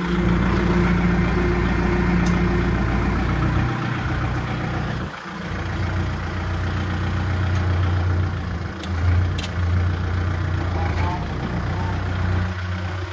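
Kubota MU4501 tractor's four-cylinder diesel engine running steadily as the tractor is driven off; the engine note changes after a brief dip about five seconds in.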